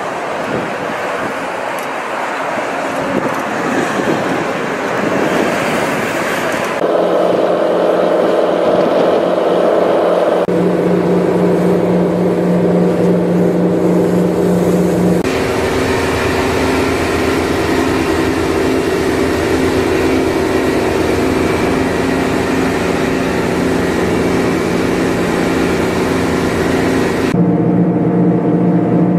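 Fireboat's engines running underway, a steady drone mixed with the rush of water and wind. The pitch and mix change abruptly several times.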